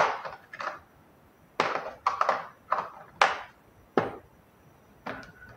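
Steel sockets from a Scheppach TB 217 socket set being picked up and set back in the case's plastic tray: about nine sharp metallic clinks and knocks at irregular spacing, each ringing briefly.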